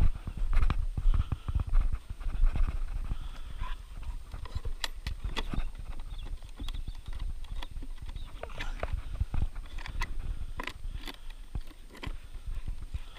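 Scattered clicks and knocks of hands working the catch and lid of a ferret carry box, over rustling handling noise; the first couple of seconds carry heavy low rumble from movement at the head-mounted camera.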